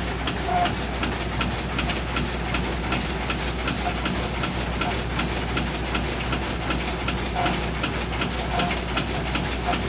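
The 1904 triple-expansion steam engine of the steamship Virginia V running at about 150 rpm. Steady hiss of steam over a low hum, with an even, rapid ticking clatter from the rods and valve gear.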